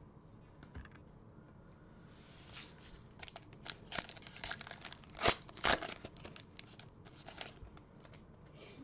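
Foil wrapper of a Panini Prestige football card pack being torn open and crinkled by hand: a run of sharp crinkles and tearing sounds that starts about two and a half seconds in, with the loudest two crackles just past the middle.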